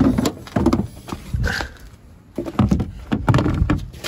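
A series of irregular knocks and thumps in a few short clusters, like gear being handled.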